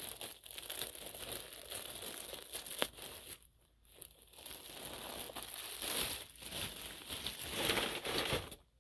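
Package being ripped open and its wrapping crinkled by hand, with one sharp click a little under three seconds in and a short lull soon after.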